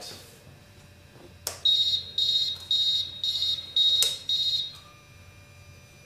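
Killer RC Killer Bee kill-switch buzzer, mounted inside an HPI Baja 5T's plastic radio box, beeping about twice a second, six high beeps with the last one longer, its signal that the engine is killed. A sharp click comes just before the beeping starts, and another just before it stops.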